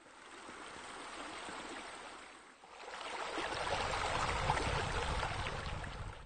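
Pool water sound effect: running, splashing water, fainter at first and then louder and fuller from about two and a half seconds in, cutting off abruptly at the end.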